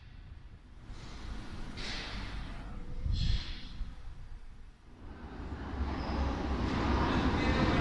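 A Madrid Metro Serie 2000A train approaching through the tunnel, its rumble building steadily from about five seconds in. Before that there is quieter noise with two brief hissing swells.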